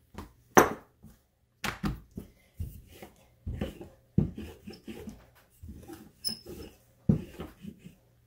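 Wooden rolling pin rolling roti dough thin on a countertop: a run of rubbing strokes, each ending in a knock, a little over one a second. The loudest is a sharp knock about half a second in.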